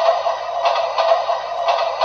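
A toy telephone's small speaker playing a short electronic tune. It sounds tinny, with an accent about once a second.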